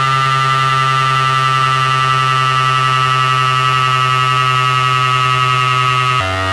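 Teisco 110-F analogue synthesizer holding one loud, buzzy, harmonic-rich note, then dropping to a lower note near the end.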